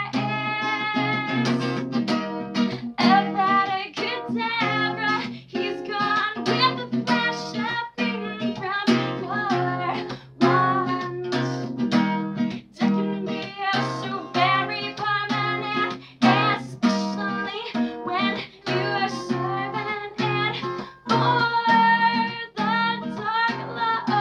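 A woman singing a song while strumming an acoustic guitar in a steady rhythm.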